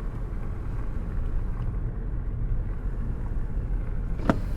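Car road noise: a steady low rumble while driving, with one sharp click near the end.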